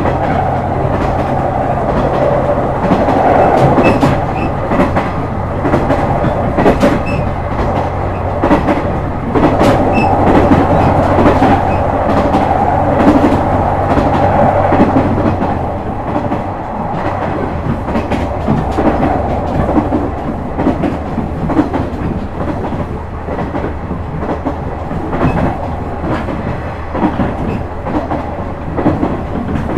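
JR West KiHa 126 series diesel railcar running at speed: a steady diesel engine drone under wheel and track noise, with the wheels clicking rhythmically over rail joints. About halfway through, the engine note drops and changes.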